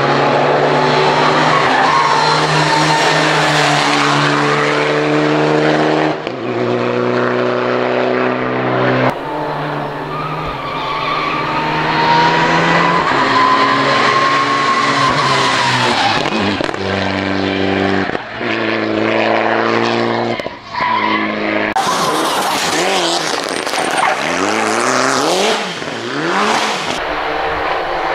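Rally cars driven hard on a stage: engines holding high revs, gear changes and revving up and down, with tyres squealing through the corners. The sound jumps abruptly several times from one car or shot to the next.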